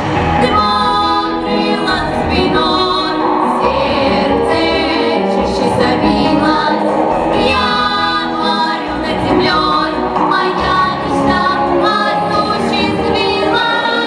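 A girls' vocal ensemble singing together into microphones, with wavering vibrato on the held notes.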